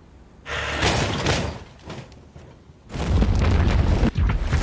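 Cartoon action sound effects: a crashing burst about half a second in, then a loud, deep rumbling boom from about three seconds in.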